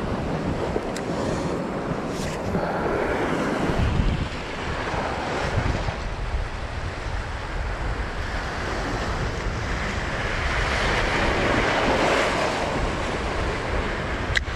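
Surf washing and breaking over shoreline rocks, surging twice, around three seconds in and again around eleven seconds, with wind buffeting the microphone.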